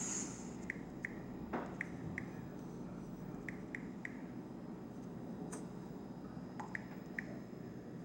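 Faint, irregular ticks of taps on a smartphone's touchscreen keyboard, about a dozen, in small groups, over steady room noise.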